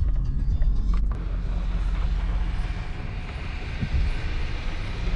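Diesel engine of a county road grader running steadily as it clears snow off the road, with a low engine hum and a rushing noise above it that dips in the middle and swells again.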